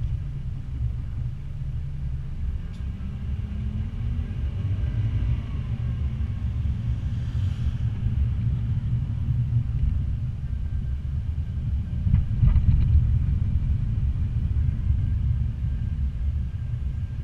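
Longboard wheels rolling fast down rough asphalt: a steady low rumble, mixed with wind on the moving microphone. It grows louder about twelve seconds in.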